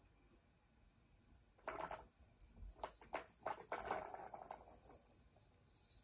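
Plastic balls clicking and rattling in a cat's tower-of-tracks ball toy as a cat paws at it. A run of sharp clicks and short rattles starts a couple of seconds in and lasts a few seconds.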